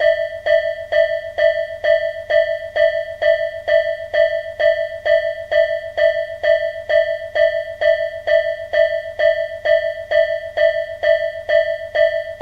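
Japanese railroad level-crossing warning bell ringing steadily: one clanging electronic tone struck evenly about twice a second.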